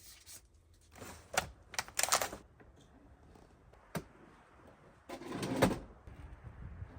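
Irregular clicks, knocks and rustling of small objects being handled and set down, with a single sharp click about four seconds in and a longer, louder rustle near the end.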